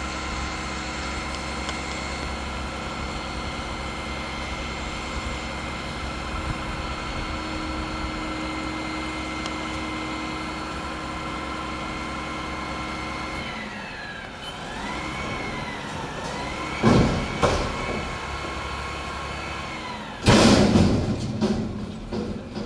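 Mack garbage truck with a McNeilus front-loader body: its engine runs steadily, then from about 14 s in its pitch rises and falls several times. Two sharp knocks come near 17 s, and a loud, noisy burst about 20 s in.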